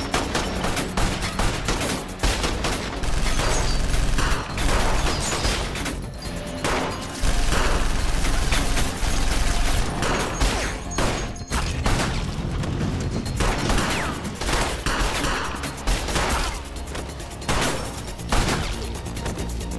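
Gunfight of repeated pistol shots fired in bursts with short lulls, over a film's music score.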